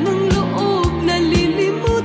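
Background music: a Filipino pop song with a wavering melody line over a steady beat, about two beats a second.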